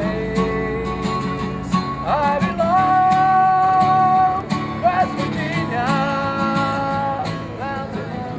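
Acoustic guitar music with a melody of long held notes that slide into pitch over the accompaniment.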